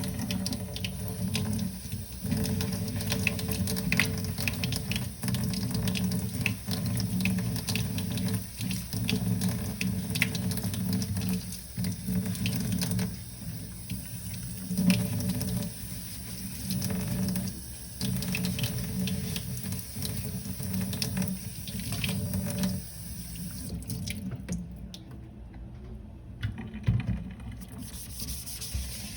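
Dishes being washed by hand in a sink: tap water running, with frequent light clinks of dishes and utensils.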